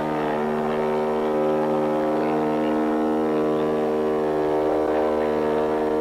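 Ship's horn of the ocean liner MS Willem Ruys sounding one long, low, steady blast.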